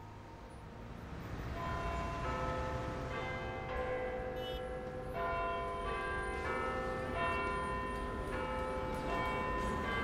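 Church bells ringing a run of overlapping strokes, swelling in over the first couple of seconds, over a low steady rumble.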